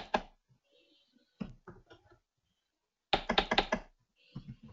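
Computer keyboard keys being typed in short bursts of clicks, with a quick run of keystrokes about three seconds in.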